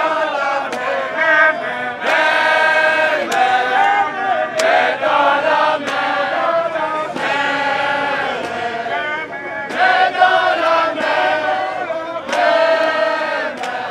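A group of men and women singing a protest song together, in phrases of long held notes.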